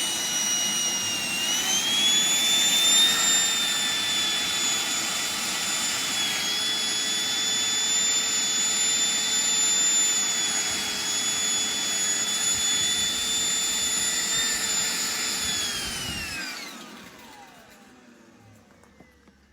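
New Predator wet-and-dry gutter vacuum running flat out during an airflow test, a steady high-pitched motor whine that rises slightly about a second and a half in. About three-quarters of the way through it shuts off, the whine sliding down in pitch and fading as the motors spin down.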